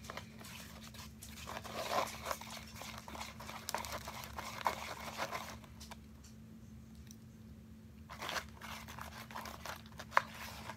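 Clear glue slime being mixed by hand just after activator is added, giving irregular sticky clicks and crackles, with a quieter pause partway through and one sharp click near the end. The slime is starting to clump as the activator takes.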